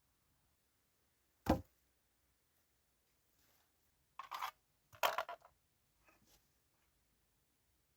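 One sharp knock about a second and a half in, then two short scraping, rustling sounds a little after the middle, like wood or brush being handled.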